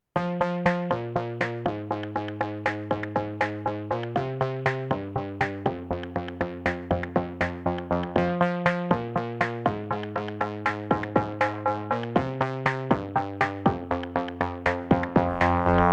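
Electronic music: a steady pulse of short plucked synth notes, about three a second, over chords that change every second or two.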